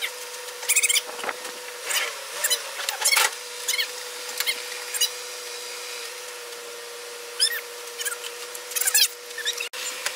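Short creaks and squeaks, some sliding up or down in pitch, repeating irregularly from heavy rope straining under a hoisted pickup truck bed. A steady hum runs underneath.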